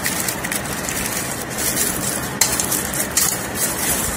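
Hands pressing and smoothing baking paper into a round metal cake tin: paper rustling and skin rubbing against the metal in uneven strokes, with a few sharper scrapes.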